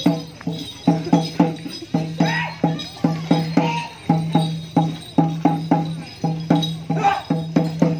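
Kawasaran war-dance drum beaten in a quick, steady rhythm, about three to four strikes a second, each stroke leaving a low ringing tone.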